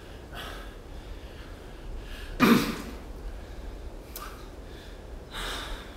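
A person breathing out in short huffs, with one loud sigh-like exhale about halfway through.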